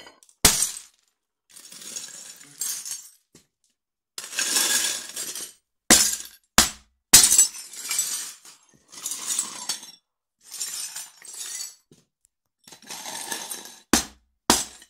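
Ceramic plates and their shards being crushed under black platform high heels: sharp cracks as the plates break, one near the start, three in quick succession about six to seven seconds in and two near the end. Between them come stretches of scraping and crunching as broken pieces grind together underfoot.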